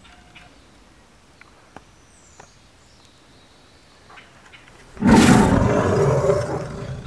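A big cat's roar, like a lion's, breaking out suddenly and loudly about five seconds in and fading over about two seconds after quiet outdoor background.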